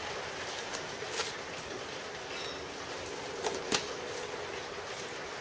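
Steady hiss of rain falling, with a few light clicks and taps from handling at the workbench.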